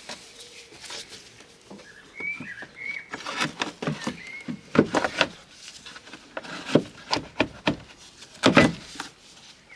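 A run of knocks and clunks as a car jack is handled and stowed back in its place, loudest in a cluster near the end. Birds chirp briefly in the background about two seconds in.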